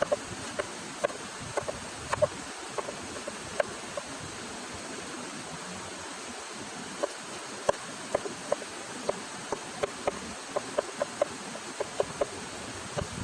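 A steady rushing hiss with many irregular short, sharp clicks and taps, a few to several a second, busier in the second half.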